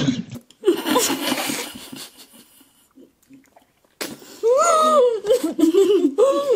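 A woman's breathy, wheezing laughter, then after a short lull a loud, high-pitched, wavering laugh starting about four seconds in.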